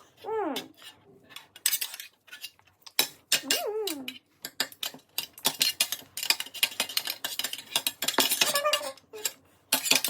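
Cutlery and dishes clinking and clattering repeatedly, with a few short high-pitched vocal sounds from a young child.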